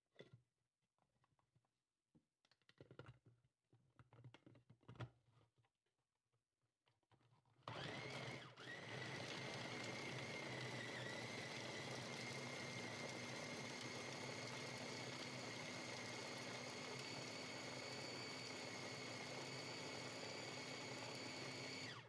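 Small electric food chopper with a top-mounted motor, grinding almonds and dried fruit: a few light clicks and knocks as the lid and motor unit are fitted, then about a third of the way in the motor starts and runs steadily with a high whine, dipping briefly just after starting and cutting out right at the end.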